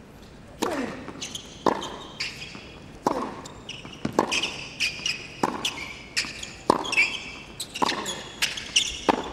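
Tennis rally on a hard court: a serve, then tennis balls struck with rackets about once a second, with sneakers squeaking on the court between the shots.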